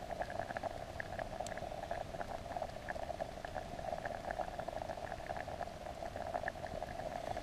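Pot of liquid bubbling steadily on a campfire, with many small quick pops.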